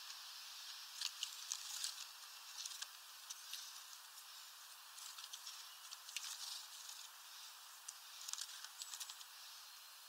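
Small birds pecking and hopping on a feeder tray of sunflower seeds: faint, irregular light taps and clicks over a steady hiss, with no calls or song.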